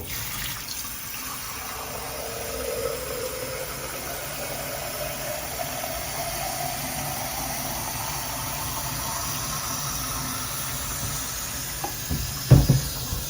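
Shower head spraying water steadily as it runs through a micro bubble machine, with a faint hum under the spray. There is a click at the very start and a couple of knocks about twelve seconds in.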